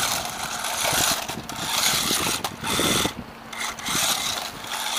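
WLToys 18401 1:18 RC car's brushed electric motor and plastic gears whirring as it drives over rough, snowy ground, rising and falling with the throttle, with a brief drop a little after three seconds in.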